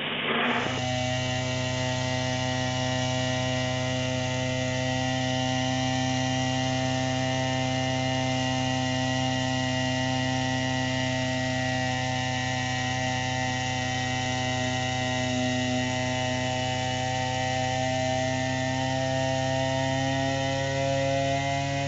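A steady machine hum with several fixed tones, a few of which drift slightly higher near the end.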